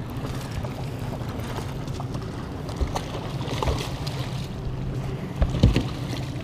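A hooked bass splashing at the surface beside a boat, with sudden thumps about three seconds in and twice near the end, over wind noise and a steady low hum.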